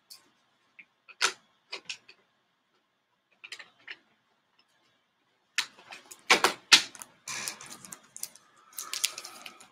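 A plastic comic bag with its cardboard backing board being handled and opened: a few scattered light clicks and taps, then from about six seconds in a busy run of crinkling plastic and sharp taps as the contents are pulled out.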